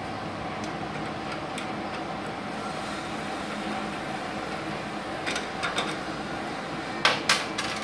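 Steady whir of a Multipro MMAG 600 G-TY inverter welding machine running idle, its cooling fan on. A few metallic clicks come about five seconds in, then two sharp, louder clicks near the end, as cable plugs are handled at the machine's output sockets.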